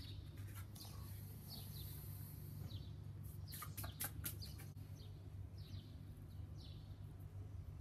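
Small birds chirping faintly, a few short falling notes, over a low steady hum. About three and a half seconds in comes a brief crisp rustling as dried oregano is rubbed between the palms over the pan.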